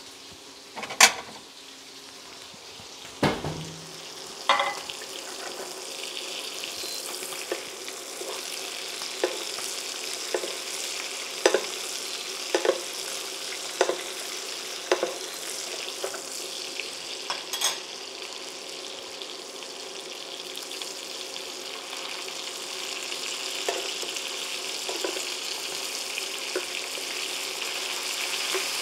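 Pigeon breasts frying in butter in a frying pan: a steady sizzle that grows louder, with a metal spoon clicking against the pan every second or so as the butter is basted over them. Two louder knocks come in the first few seconds.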